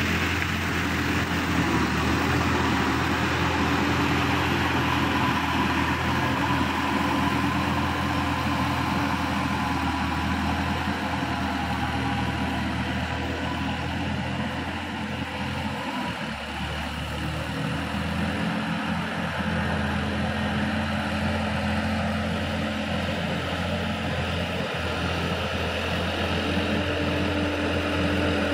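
Sonalika DI 50 RX tractor's diesel engine running steadily under load as it pulls a rotary tiller through a flooded paddy field, dipping slightly in level midway as it moves farther off.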